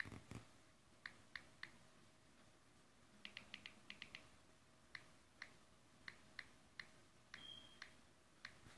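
Samsung Galaxy Note 3's on-screen keyboard making its key-tap click sounds as keys are typed. The clicks come singly or in small groups, with a quick run of about six a few seconds in. A brief high tone sounds near the end.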